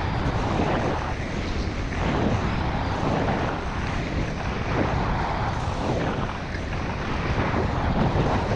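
Heavy wind noise buffeting the action camera's microphone at about 50 km/h, over the hiss and scrape of skis on packed, tracked snow, swelling into a swoosh with each turn about every second or so.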